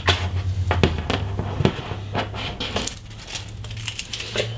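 Scattered light clicks and taps of small hard parts being handled and taken off a PC motherboard, a few sharp ticks rather than a steady sound.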